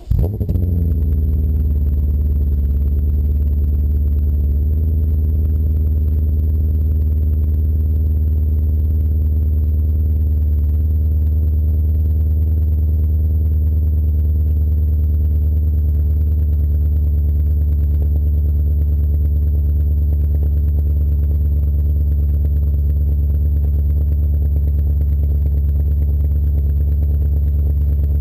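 BMW E39 M5's V8 catching on a cold start through a Skytune cat-back exhaust, flaring for a moment and then settling into a steady, loud high idle.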